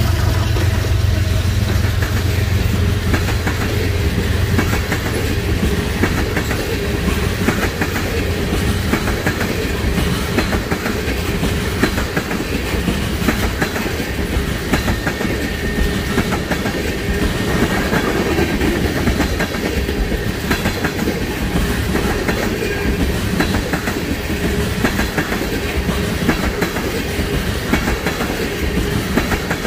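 Norfolk Southern freight train of tank cars and covered hoppers rolling past, its wheels clattering over the rail joints in a steady repeating clickety-clack. A diesel locomotive's low engine drone fades out in the first few seconds as the last locomotive goes by.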